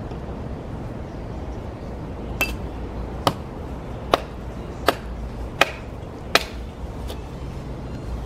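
Hatchet chopping a small stick of firewood into kindling on a log: after about two seconds, six sharp knocks land roughly one every three-quarters of a second, with a faint seventh near the end.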